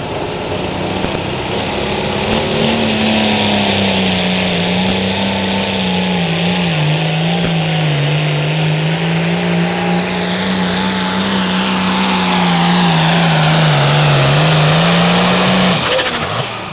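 Limited pro stock pulling tractor's turbocharged diesel engine running flat out on a pull. Its note steps up about two seconds in, wavers and sags under load, then cuts off abruptly about a second before the end.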